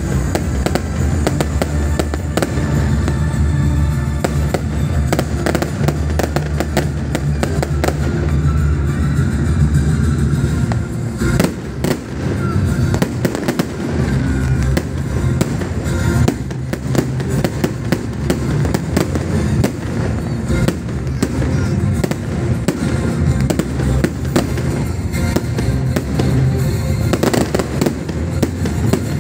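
Fireworks display: aerial shells bursting and crackling in a dense, continuous barrage.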